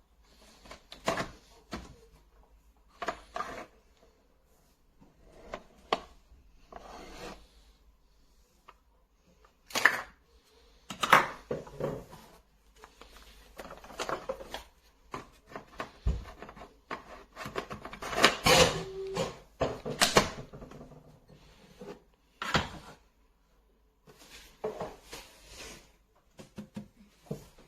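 Irregular handling noises: a series of clicks, knocks and rubbing scrapes. The loudest knocks come about ten to eleven seconds in, around eighteen to twenty seconds, and once more at about twenty-two seconds.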